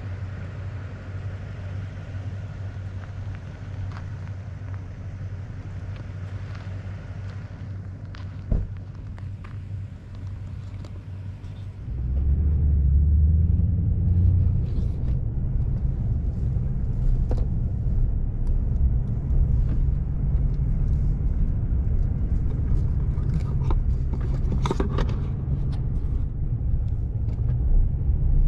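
Steady low road-and-engine rumble from a car on the move, with a single sharp click partway through. About twelve seconds in the rumble turns abruptly louder and heavier.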